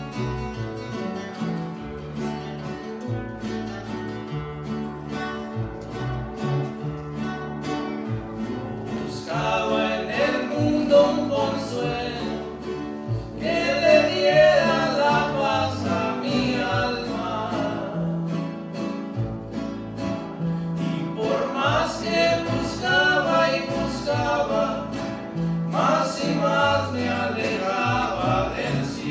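Acoustic guitars playing a plucked instrumental introduction, then men's voices singing a Christian praise song over the guitars from about nine seconds in, with short breaks between sung lines.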